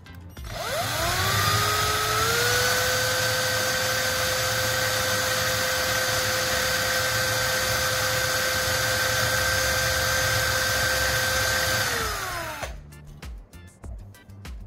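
Electric power tool motor spinning up with a rising whine, running steadily at full speed for about ten seconds, then winding down with a falling pitch and stopping near the end.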